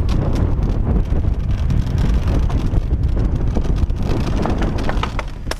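Wind buffeting the microphone of a mountain bike riding downhill, with the clatter and rattle of the bike over rough trail.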